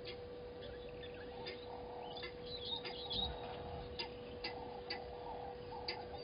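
Waterhole ambience under a steady electrical hum: sharp clicks every half second or so and a brief burst of high bird-like chirps about two and a half seconds in.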